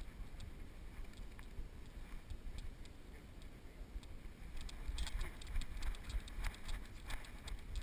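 Low rumble with irregular clicks and knocks from a GoPro strapped to a moving dog's back: the camera, its housing and the harness jostling as the dog trots. The clicking grows busier and louder about five seconds in.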